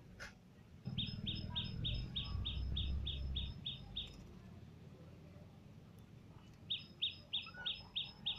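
A bird calling in a fast, even series of short high notes, about four a second: a run of about a dozen, then after a pause a second run near the end. A low rumble sits under the first run.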